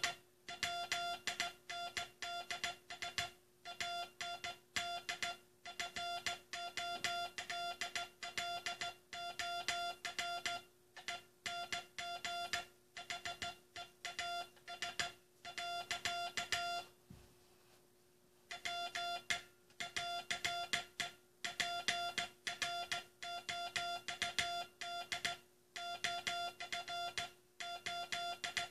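Morse code (CW) tone near 700 Hz keyed on and off in dots and dashes, sending the U.S. Coast Guard's last CW message, with a pause of about a second and a half about two-thirds of the way through. A faint steady hum sits underneath.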